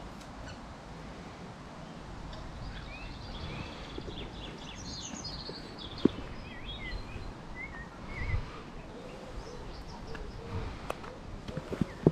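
Small birds chirping and singing for a few seconds through the middle, over a low steady outdoor rumble. A single sharp click comes about halfway through, and a soft thud a couple of seconds later.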